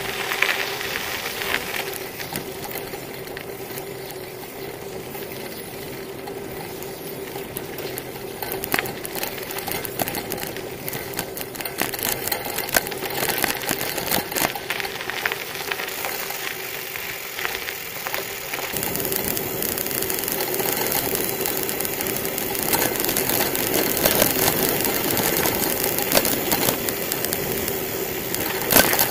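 Bicycle rolling over rough, patched asphalt: steady tyre noise with a constant hum and frequent rattling clicks from the bike. The hiss grows louder about two-thirds of the way through.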